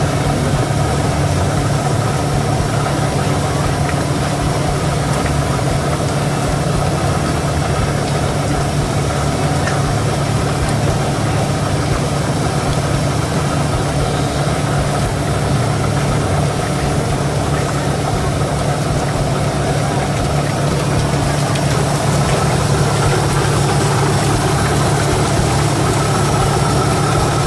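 A machine running with a steady low hum, unchanging throughout, with faint voices in the background.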